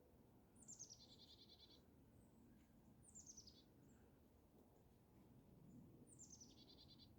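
A songbird singing faintly: three short high phrases, each a quick falling run of notes, two of them ending in a short even trill.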